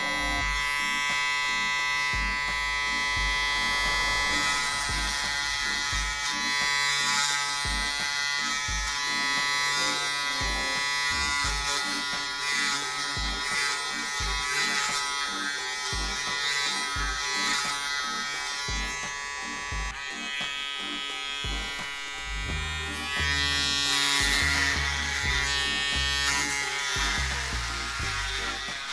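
Pop Barbers P600 electric foil shaver running with a steady buzz, held close to the microphone while it is passed over short beard stubble. Background music with a beat plays under it.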